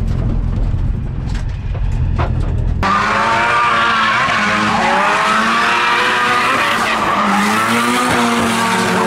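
A Nissan 180SX's turbocharged SR20 engine heard from inside the cabin as a low rumble. About three seconds in the sound cuts to the car drifting past: the engine revs up and down while the tyres squeal and skid.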